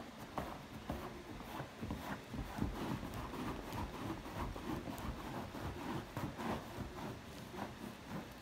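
A German Shepherd nosing and pawing a quilted throw into the gap between sofa cushions to bury an item: irregular rustling and scuffing of fabric with soft thumps.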